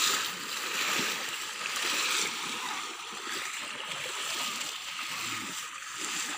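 Water splashing as people wade quickly through a shallow, muddy pond, loudest over the first two seconds and then settling into softer sloshing.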